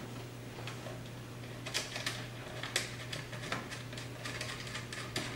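Light, irregular metallic clicks of a 10 mm socket and nut being run onto a stud, a few ticks a second starting about a second and a half in, over a low steady hum.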